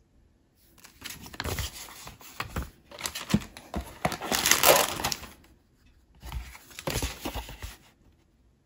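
Paper instruction sheets and packaging crinkling and rustling as they are handled, along with a plastic bag of seed beads, in three stretches. The middle stretch is the loudest.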